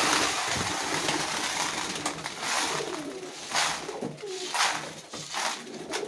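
Grain feed poured into a pigeon feeder: a steady rushing hiss that starts suddenly and swells in a few surges in the second half. Domestic pigeons are cooing under it.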